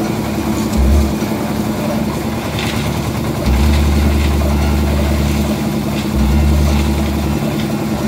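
Kirloskar 10 HP air-cooled diesel engine running steadily, powering a concrete mixer as its drum tips and discharges wet concrete into the lift bucket. A deeper rumble swells in three stretches, the longest about three and a half seconds in.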